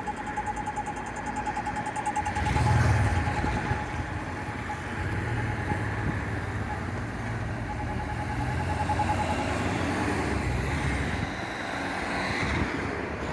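City street traffic: a motor vehicle's engine rumbles past close by for several seconds, loudest about three seconds in. A steady high tone sounds through the first half.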